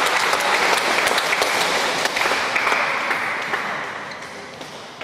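Spectators clapping at the end of a badminton rally, the applause dying away over the last two seconds.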